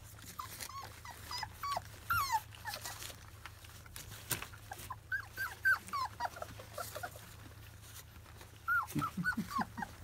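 Litter of 25-day-old Labrador retriever puppies squeaking and whimpering as they jostle at the bowl over their first weaning food: many short, high squeaks falling in pitch, coming in clusters, among a few sharp clicks.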